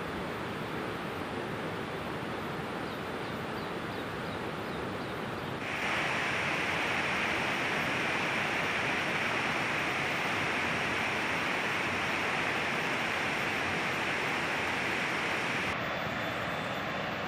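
Steady rushing wash of a fast-flowing, muddy river. About six seconds in it turns abruptly louder and hissier, then drops back near the end.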